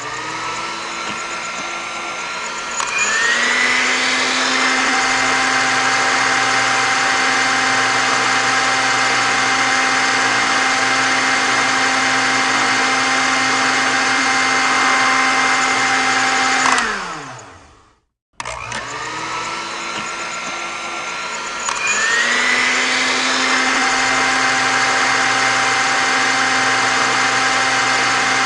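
Electric kitchen mixer motor running at low speed, then switched up to a higher speed with a rising whine about three seconds in, and running steadily. It is switched off and winds down with falling pitch to silence, then starts again and steps up to high speed once more.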